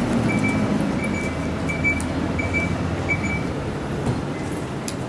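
Hino Blue Ribbon city bus's diesel engine running as the bus pulls in to the stop, a steady low rumble. A short high beep repeats about every 0.7 s over the first three seconds.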